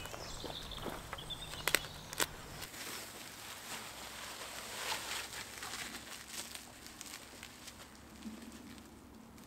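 Large sheet of bubble wrap rustling and crinkling as it is handled and draped over a metal frame, with two sharp clicks about two seconds in.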